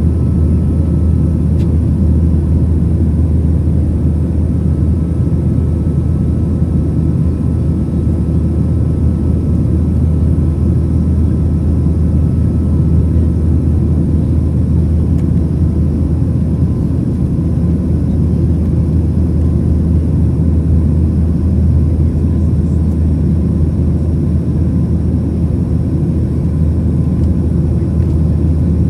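Cabin noise in a Boeing 737-900ER over the wing during the climb after takeoff: its two CFM56-7B engines and the rushing airflow make a loud, steady, deep rumble with faint steady high tones above it.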